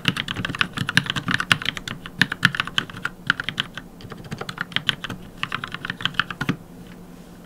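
Typing on an Anne Pro 2 mechanical keyboard fitted with NovelKey Cream linear switches lubed with Krytox 205g0: a fast run of keystrokes with a couple of short pauses, stopping about six and a half seconds in.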